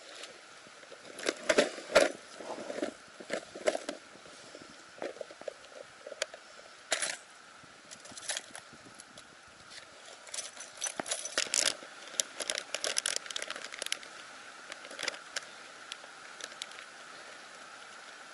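Irregular crackling, rustling and clicking handling noise close to the microphone, in clusters about two seconds in and again around eleven to thirteen seconds in.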